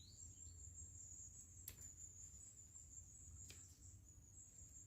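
Faint, quiet woodland: a steady high-pitched insect trill, like crickets, with two short sharp clicks about a second and a half apart.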